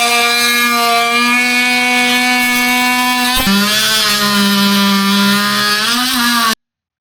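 Cordless oscillating multi-tool running with a steady buzzing pitch; about three and a half seconds in there is a click and the pitch steps down, and the sound stops abruptly near the end.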